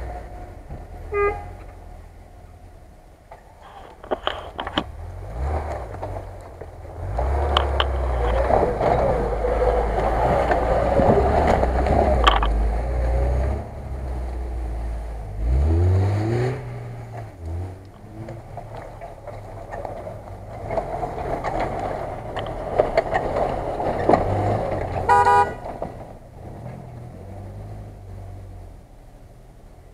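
Off-road vehicles' engines running on the track, with one rising rev about halfway through, and two short car-horn beeps, one about a second in and another near 25 seconds.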